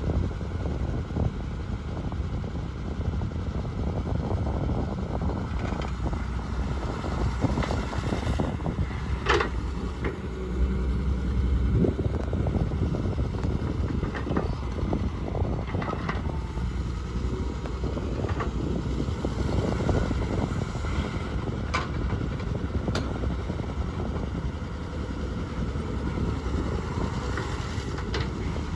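Diesel engines of a JCB 3DX backhoe loader and tractors running steadily under work, with occasional sharp knocks.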